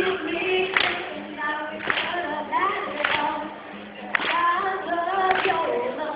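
A female voice singing over music, with a sharp clap on the beat about once a second.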